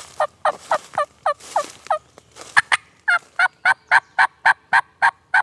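A long run of hen turkey yelps from a turkey call, about four notes a second. The early notes each slur downward, and those in the second half are sharper and higher. It is aggressive calling meant to excite a gobbler.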